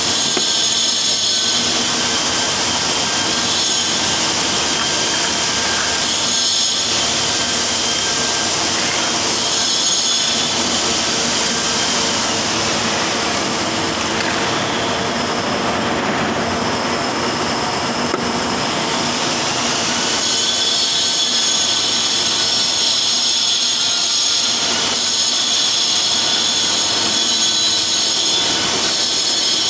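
An electric power tool running steadily and loudly, a continuous whine with a grinding hiss, that does not stop.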